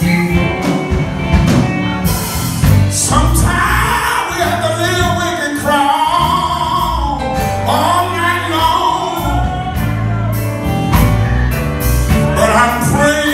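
Live gospel quartet music: a male lead singer sings over electric bass guitar and drums.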